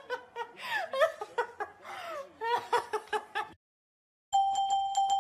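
A woman laughing and giggling in quick, high-pitched bursts, stopping about three and a half seconds in. After a short silence, a tinkling glockenspiel tune starts.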